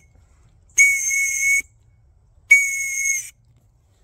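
Signal whistle blown in two steady, high-pitched blasts of just under a second each, about 0.8 s and 2.5 s in: the last two of three whistle blasts, the standard distress signal for a lost hiker.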